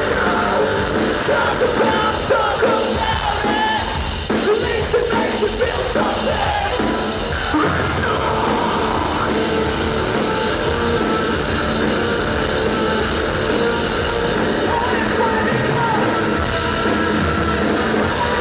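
Metalcore band playing live and loud, with electric guitar, keyboards and vocals over the full band.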